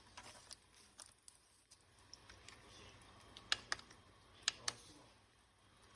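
Scattered light clicks and taps, with two pairs of sharper clicks about halfway through.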